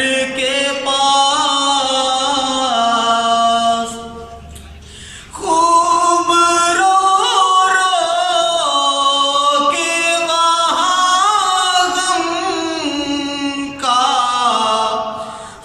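A young man's solo voice chanting an Urdu naat, a devotional poem in praise of the Prophet Muhammad, unaccompanied, in long ornamented held notes. He breaks off about four seconds in and resumes a second and a half later.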